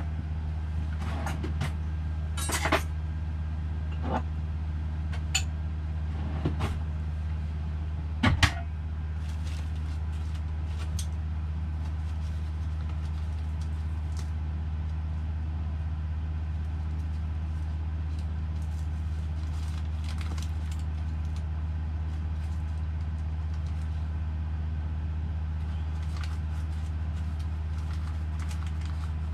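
A steady low mechanical hum runs throughout. Over it come scattered clicks and knocks of items being handled at a camper van's kitchen counter, mostly in the first several seconds, the loudest about eight seconds in.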